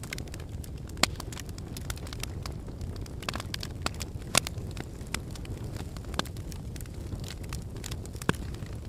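Wood fire burning in a fireplace: a steady low rumble with irregular crackles and sharp pops, the loudest about a second in, a little past the middle, and near the end.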